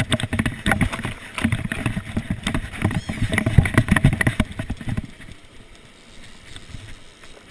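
Handling noise: a sleeve and hand rubbing and knocking against the GoPro camera's housing in a fast, irregular clatter, which stops about five seconds in. After that only the faint rush of the river rapids is left.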